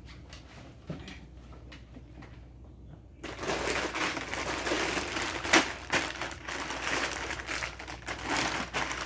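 Food packaging being handled, crinkling and rustling, starting about three seconds in with a sharp crackle about halfway through; a few light clicks before it.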